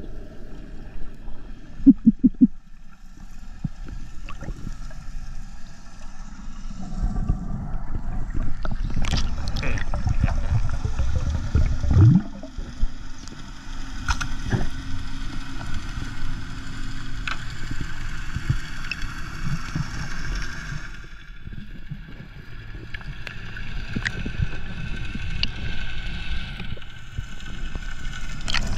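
Underwater sound picked up by a camera in the sea: a muffled rush of water and bubbles with scattered clicks and crackles, a few short loud pulses about two seconds in and a brief rising sound near the middle.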